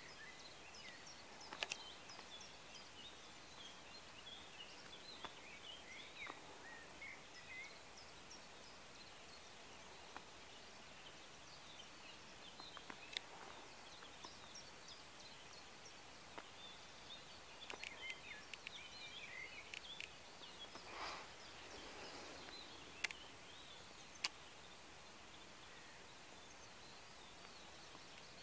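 Faint outdoor ambience of small birds chirping and singing in the background over a steady hiss, with a few sharp clicks, the loudest two near the end.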